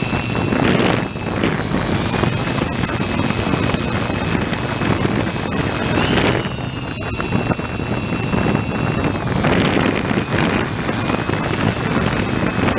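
Multirotor drone's motors and propellers whining steadily while hovering, the high whine shifting slightly in pitch now and then. Wind buffets the microphone in rushes about 1, 6 and 10 seconds in.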